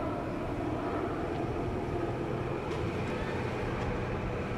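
A moving car's engine and road noise, steady, heard from inside the car.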